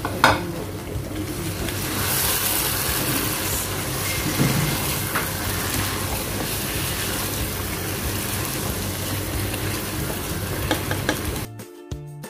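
Chicken masala sizzling in a pot while a spatula stirs it through, with a sharp knock just after the start. Background music takes over near the end.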